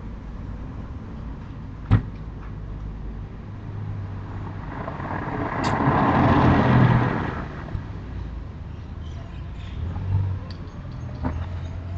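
A road vehicle passing by: a broad rushing noise over a low engine hum swells up, peaks about six seconds in and fades away. A single sharp click comes about two seconds in, and a rising whine begins near the end.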